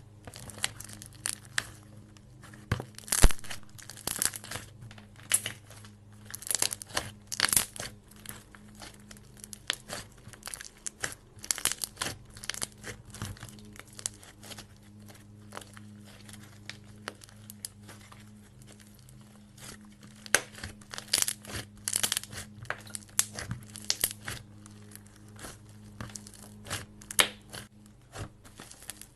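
Clay slime being kneaded and mixed by hand, making sticky crackling and popping sounds in irregular clusters, over a low steady hum.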